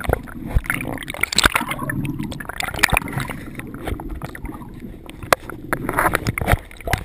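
Muffled sloshing and gurgling of sea water around a camera held just under the surface, with many sharp knocks and clicks scattered throughout.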